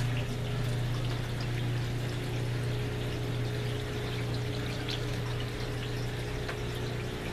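Aquarium filters and pumps running: water trickling and splashing over a steady low hum.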